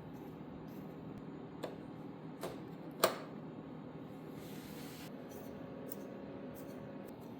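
A few small knocks and clacks from tools and parts being handled, three of them, the third a sharp clack about three seconds in, over a low steady hum; a brief hiss a little past four seconds.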